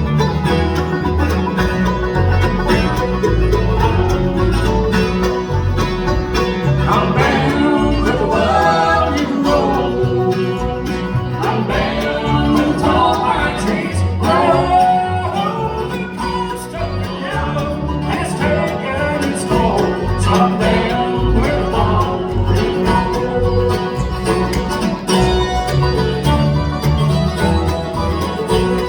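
Bluegrass band playing: banjo and guitar, with a fiddle carrying a wavering melody through the middle.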